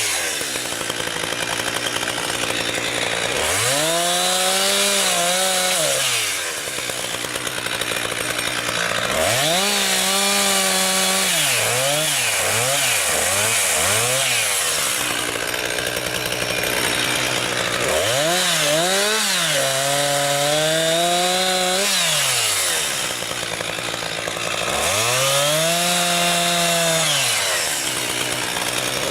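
Husqvarna 359 two-stroke chainsaw cutting wood, its engine revving up, holding and dropping back about five times, with a few quick short blips of the throttle near the middle.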